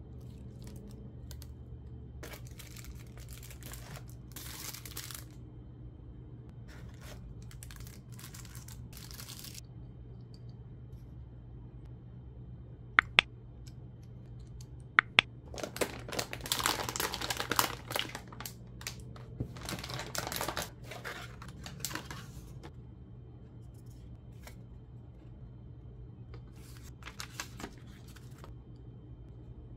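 Packaging being handled while a graphics card is unboxed: rustling and crinkling in scattered bursts, with two pairs of sharp clicks about 13 and 15 seconds in. The busiest, loudest rustling comes just after the clicks.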